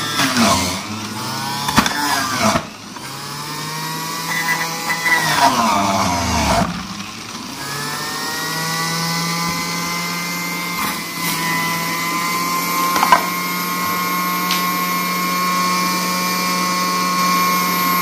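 Electric juicer motor running with a pitched whine. Over the first seven seconds, as carrot pieces are pressed down the feed chute, it slows and speeds up again several times. From about eight seconds it runs at a steady pitch.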